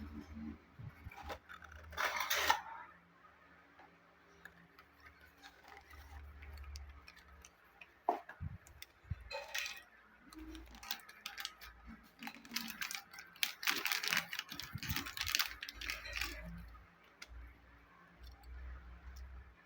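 Handling noises: scattered small clicks, taps and rustling as a die-cast toy car and its cardboard-and-plastic packaging are handled, busiest for several seconds in the second half.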